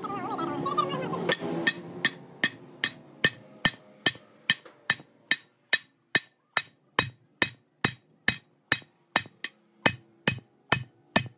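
A hammer strikes steel pins set through a steel sleeve joint on a truck axle shaft, peening them down flush. The strikes come in a steady run of ringing metallic blows, about two and a half a second, starting about a second and a half in.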